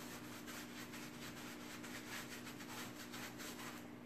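Paintbrush brushing paint onto upholstery fabric: quick, repeated scratchy back-and-forth strokes, about four or five a second, faint.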